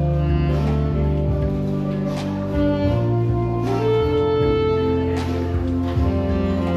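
Background music: sustained bass and mid-range instrument notes that change every second or so, with a sharp beat about every one and a half seconds.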